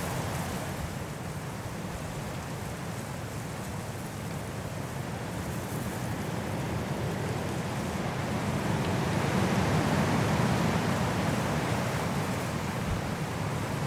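Strong wind blowing through trees in a snowstorm, a steady rushing that swells in gusts, growing louder toward the middle and easing near the end.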